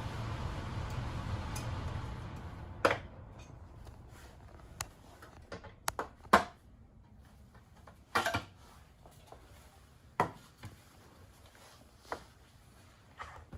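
Scattered sharp clicks and knocks of hard plastic parts and hand tools as the plastic clamshell case of a car's rear-seat entertainment screen is handled during disassembly. A steady background hiss fades out about two seconds in.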